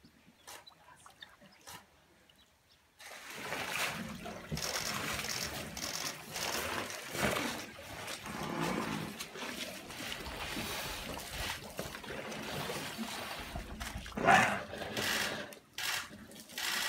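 Quiet for the first few seconds, then African elephants drinking at a waterhole close by: water splashing and trickling as trunks draw up and spill water, with a louder burst of splashing near the end.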